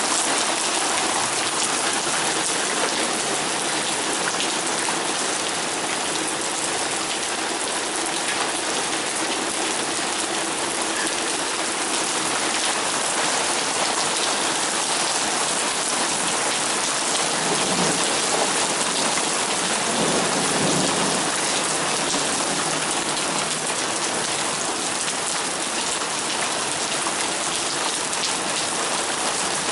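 Torrential rain pouring down in a steady, dense hiss, with a low rumble of thunder about two-thirds of the way through.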